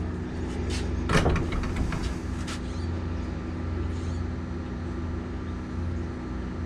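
Generator running inside a sound-insulated shed with a trash-can exhaust muffler, heard as a steady low hum from about 25 feet away with the gate shut, at roughly 56–60 dB on a meter.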